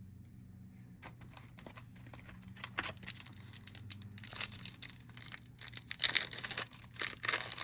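Wrapper of a baseball card pack being torn open and crinkled, in irregular bursts of rustling and crackling that start about a second in, loudest about six seconds in.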